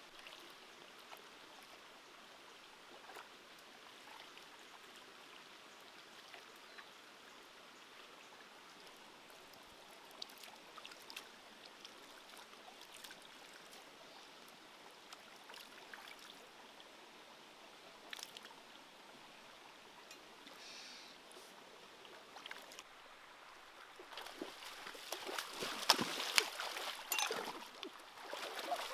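Shallow rocky stream running, a steady faint rush of water with scattered small ticks. Near the end, hands splash and slosh loudly and unevenly in the shallow water, groping along the stream bed for eels.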